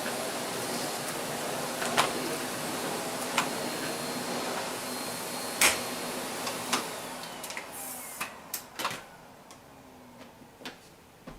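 Vacuum cleaner running steadily, with scattered clicks and knocks, then switched off about two-thirds of the way in, its motor whine falling as it spins down.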